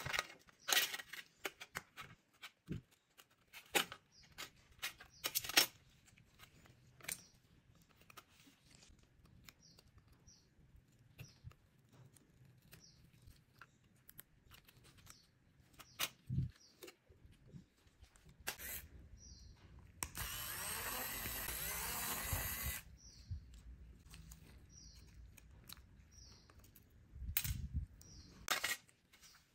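Scattered clicks and taps of small metal phone parts and tweezers against a stainless steel tray as a Vertu phone is taken apart by hand. About two-thirds of the way through, a steady hissing noise runs for about three seconds.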